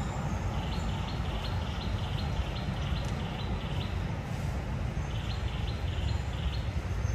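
Forest ambience: a steady low rumble, with a high chirping call repeated about three to four times a second in two runs.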